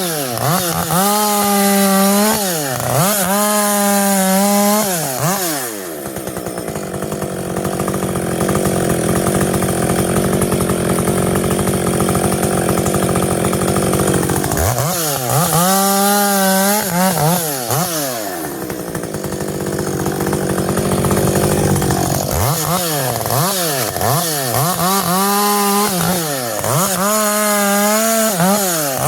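Muffler-modded Husqvarna 560XP chainsaw revving up and down in quick blips, then running steadily under load in two long cuts through dry silver birch, one about six seconds in and one near the middle.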